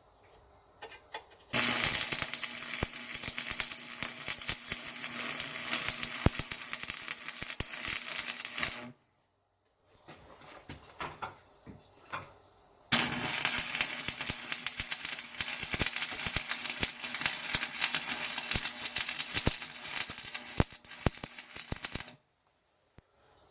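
Electric arc welding on steel: two runs of dense, fast crackling from the arc, each several seconds long, with a steady low hum beneath, separated by a pause with a few light clicks.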